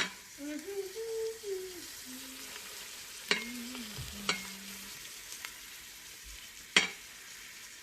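Onions and carrots sizzling in hot oil in an Instant Pot on sauté, a steady frying hiss. A few sharp clacks of a utensil or food against the pot, the loudest near the end.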